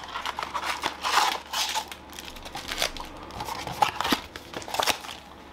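Cardboard blaster box and foil trading-card pack wrappers crinkling and rustling as the stack of packs is slid out of the box and set down, with a few sharper clicks.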